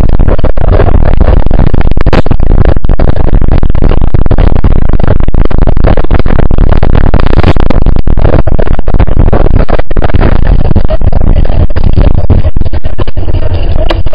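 Wind buffeting the microphone of a camera carried on a moving bicycle: a loud, distorted rumble that holds near full level throughout.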